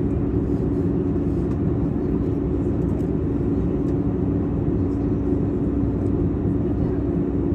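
Steady cabin noise of a jet airliner in cruise, heard from a window seat over the wing: a low engine and airflow rumble with a steady hum.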